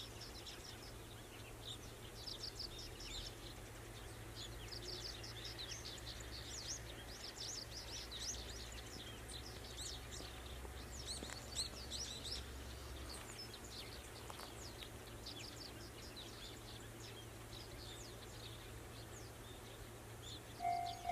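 Many small birds chirping, short high calls in quick succession, over a low steady hum. Near the end a railway level-crossing bell starts ringing with loud repeated dings.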